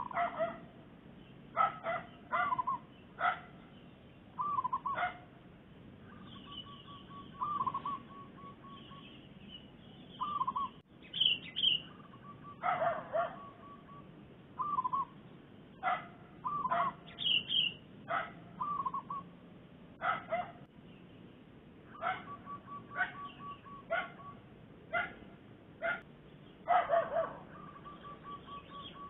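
Zebra doves calling: rapid staccato cooing trills and short repeated notes, returning every few seconds.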